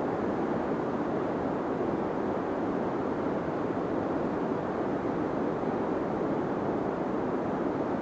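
Deep white noise: a steady, unchanging hiss with the treble rolled off, so it sounds low and dull rather than bright.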